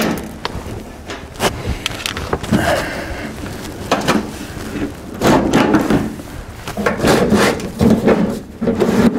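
Thin galvanized sheet-metal nest box panels being handled and shifted on a concrete floor: irregular knocks, scrapes and rattles of the metal.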